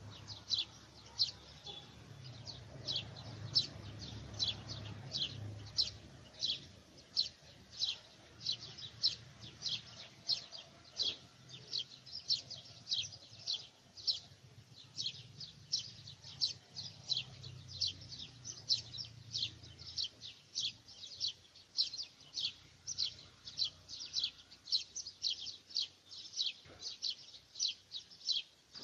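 A bird chirping over and over, short high chirps that fall in pitch, about two a second, with a faint low hum underneath.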